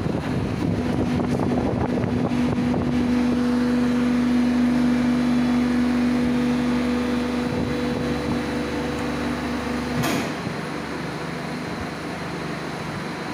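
Steady hum of blow-moulding machinery running, with a held tone that cuts off about ten seconds in, and a single sharp knock at that moment.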